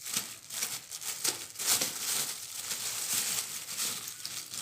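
Rummaging by hand through small objects: irregular rustling, crinkling and light clicks as things are moved about.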